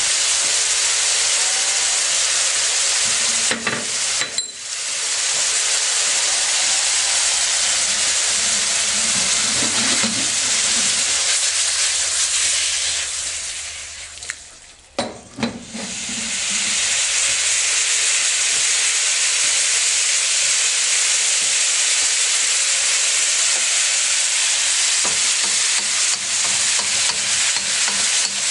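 Beef and onions sizzling loudly in a hot wok, stirred with a wooden spatula. About halfway through, the sizzle fades for a couple of seconds while the wok is lifted off the burner and tossed, then comes back after a few knocks as the pan is set down again.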